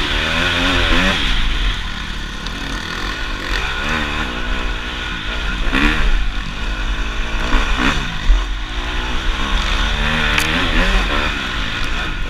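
Enduro dirt bike's engine revving up and down as it is ridden hard along a bumpy trail, heard from the bike's onboard camera, with a couple of sharp knocks from the bike about six and eight seconds in.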